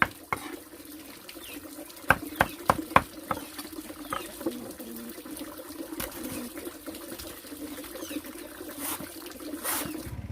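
Two quick runs of sharp strikes, about three a second: one fading out just after the start and another about two seconds in. Under them is a steady low hum.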